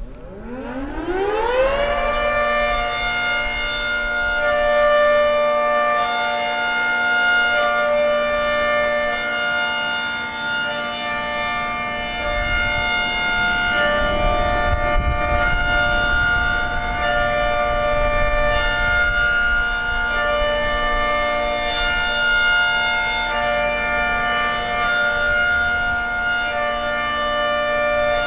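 Federal Signal 3T22A outdoor warning siren winding up with a rising pitch, then sounding its hi-lo test signal: a chord that switches back and forth between two pitches about once a second.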